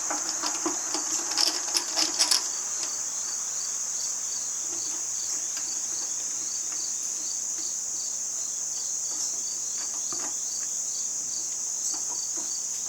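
Insects chirping: a steady high-pitched trill with regular short chirps about three a second. A few light clicks and taps in the first two seconds.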